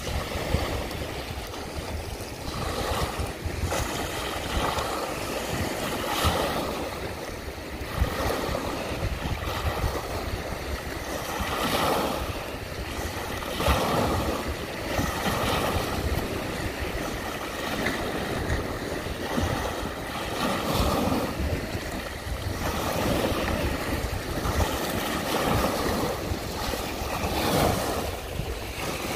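Small waves breaking and washing over a flat rock shoreline, the wash surging every two to three seconds.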